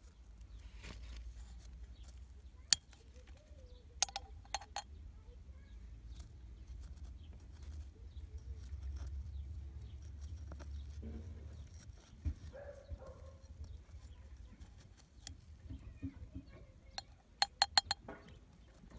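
Metal spoon scraping dry, salt-crusted soil, with a few sharp clicks, then a quick run of clinks near the end as the spoon knocks soil into a glass jar. A low rumble lies underneath.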